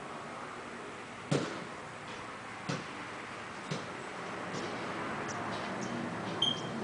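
Steady outdoor background noise with a few separate sharp clicks, the loudest about a second in, and a short high chirp near the end.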